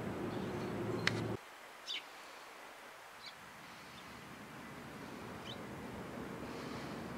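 A steady low hum that cuts off abruptly about a second and a half in, then quiet outdoor ambience with a few short, high bird chirps.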